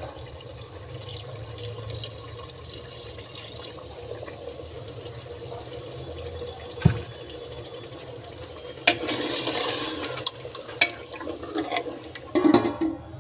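Chicken and masala sizzling in an aluminium pot, a steady hiss with a louder hissing stretch of about a second around nine seconds in. Near the end a spoon stirs the pieces, clattering against the pot.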